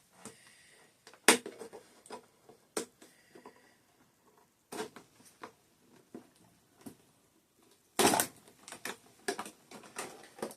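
Doll packaging being handled and opened: scattered clicks and taps of plastic and cardboard, with a louder rustling scrape about eight seconds in.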